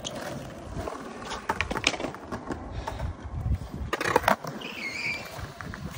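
Skateboard wheels rolling on concrete, a rumble that swells about three seconds in, followed by several sharp clacks of the board about four seconds in.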